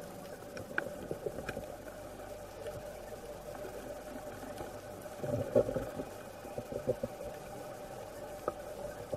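Underwater ambience picked up by a camera in its housing: a steady hum with scattered faint clicks, and a short louder burst of rough noise a little past halfway.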